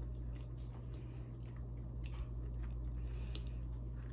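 Close-miked chewing of a mouthful of pot roast and mashed potatoes: soft, scattered wet smacks and small clicks from the mouth, over a steady low hum.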